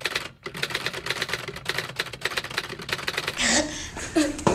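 Typewriter sound effect: a fast, even clatter of keystrokes for about three seconds. It breaks off into a boy's yell.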